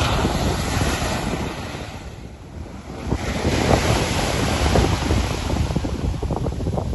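Sea surf breaking and washing up a sandy shore, with wind buffeting the microphone. The wash eases briefly, then swells again about three seconds in as a wave breaks close by.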